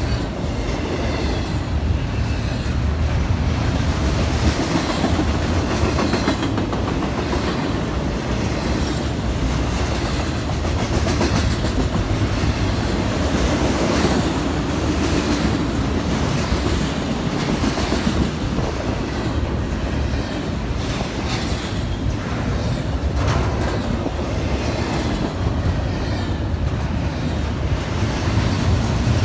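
Freight cars of a Norfolk Southern intermodal train rolling steadily past at speed, their wheels clicking irregularly over rail joints.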